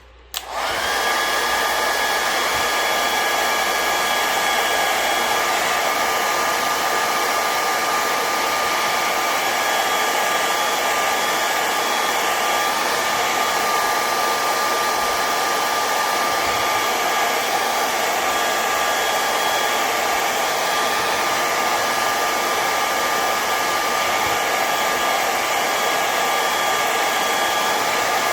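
Household hair dryer running on its high setting, heating a phone's side to loosen it for opening: a steady rush of air with a steady high whine, switched on about half a second in.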